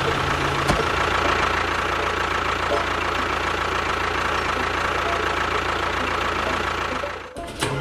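Small motor of a DIY miniature tractor running steadily with a constant high whine. It cuts out briefly about seven seconds in.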